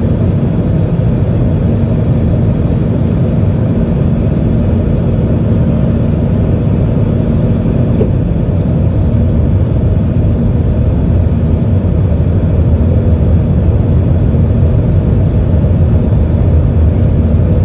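Airbus A320 cabin noise on approach, heard from a window seat beside the wing-mounted jet engine: a loud, steady low rumble of engine and rushing air, with a faint steady hum underneath.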